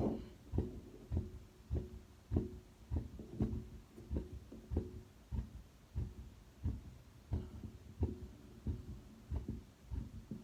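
Heartbeat heard through a Rappaport-type stethoscope: even, low thumps at about 100 beats a minute, a quickened rate after physical exertion. The sound cuts in suddenly at the start.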